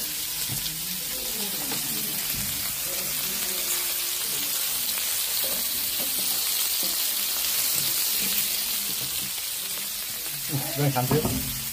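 Meat and flat slices frying on a hot flat-top barbecue griddle: a steady sizzle.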